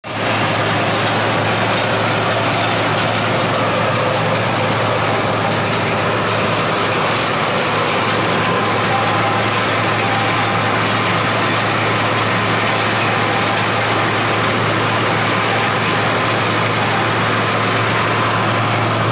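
Groundnut stripping machine running steadily: an even mechanical drone with a constant low hum, its chain conveyors and stripper working.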